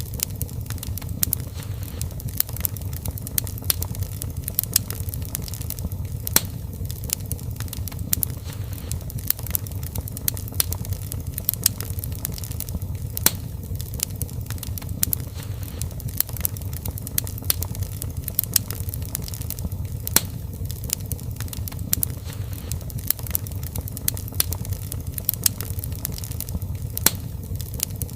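Wood fire in a fireplace crackling: irregular sharp pops and snaps, several a second, over a steady low rumble of the flames.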